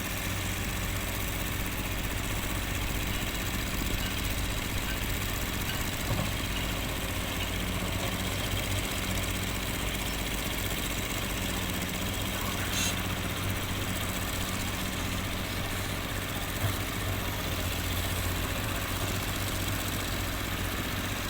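An engine running steadily at one speed, a low even hum with no revving.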